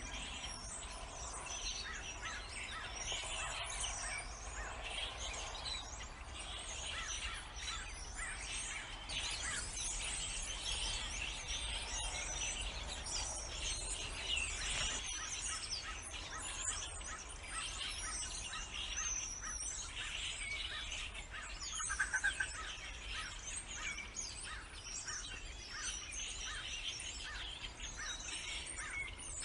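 Many birds chirping and calling over one another in a dense, unbroken chorus of short high notes and trills, with one louder call about three-quarters of the way through.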